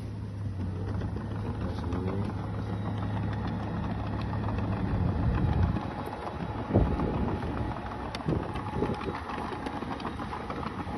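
Bulldozer's diesel engine running steadily, then several sharp knocks and clanks from about six seconds in, the loudest a single thump near seven seconds.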